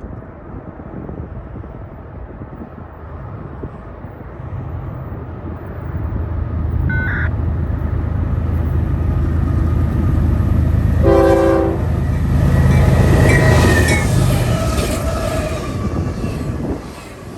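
A train rumbles in and past, growing loud and then cutting off near the end. Its horn sounds two short blasts, the second lower and louder.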